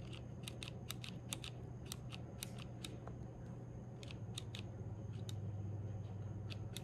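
Light, quick metallic clicks and ticks, more than a dozen at irregular intervals, from a PSA Dagger 9mm pistol handled up close: the slide is shifted and rocked on the frame to show its slide play.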